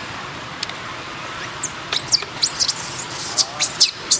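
Baby long-tailed macaque screaming in distress while an adult holds it: shrill squeals that rise and fall, starting about a second and a half in and coming in quick succession toward the end.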